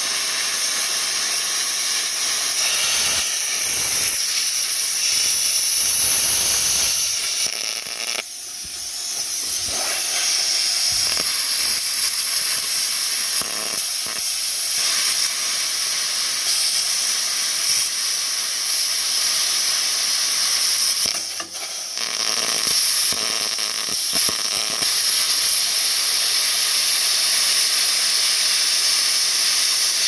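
Handheld plasma cutter cutting through metal: a loud, steady hiss of the arc and air. It dips briefly twice, about eight seconds in and again around twenty-one seconds.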